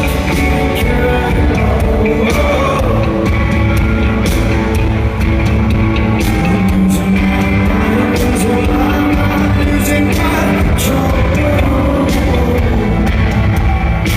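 Indie rock band playing live at concert volume: a sung lead vocal over guitars and drums, with repeated cymbal crashes.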